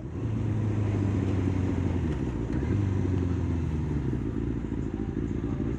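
Kawasaki sportbike's inline-four engine running at low, steady revs as the bike rolls slowly up to a queue at a junction.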